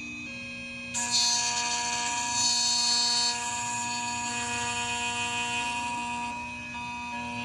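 Key-cutting machine's cutter starting up about a second in with a high-pitched whine and milling a replacement Nissan Sentra key blade. The cut is loudest for the first couple of seconds, then runs steadier before dropping away near the end.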